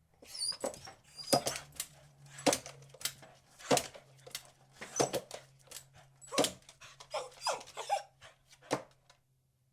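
Beagle barking in a quick, irregular series of short, sharp barks, about two or three a second, that stops about nine seconds in.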